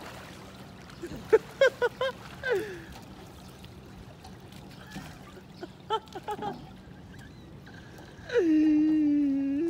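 Water running steadily, with a low hum under it, and a few short vocal outbursts. Near the end a person gives one long yell, held on one pitch for over a second.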